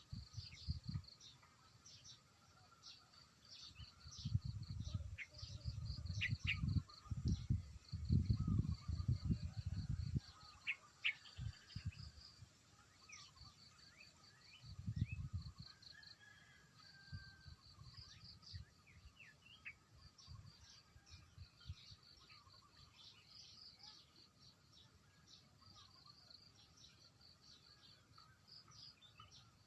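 Outdoor ambience of small birds chirping and trilling, with a steady insect buzz. It is broken by low rumbling bursts from about four to ten seconds in and again around fifteen seconds, the loudest sounds here.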